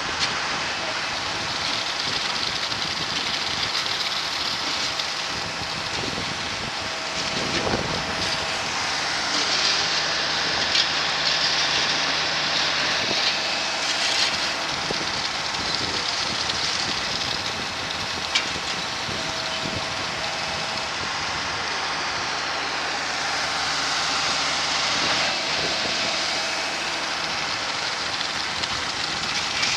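Small concrete pump working while pumping concrete: a steady engine hum under a loud hiss, with a few sharp knocks.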